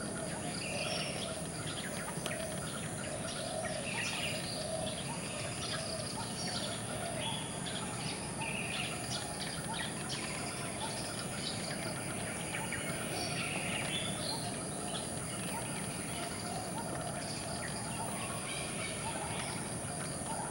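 Outdoor birdsong: many short chirps and calls from several birds, scattered all through, over a steady high-pitched drone and a constant low background noise.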